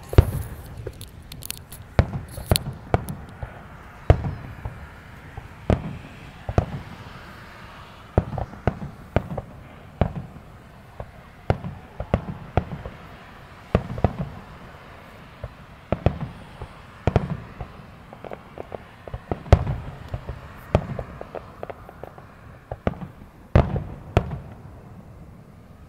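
Aerial fireworks shells bursting in a rapid, irregular series of sharp bangs, about one or two a second, with smaller pops between them.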